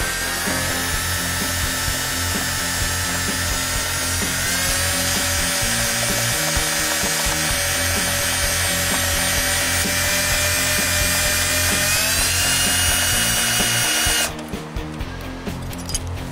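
Cordless drill driving a self-tapping screw through a metal bracket into the vehicle's body. The motor whine holds steady, steps up in pitch twice as it speeds up, and stops suddenly about 14 seconds in.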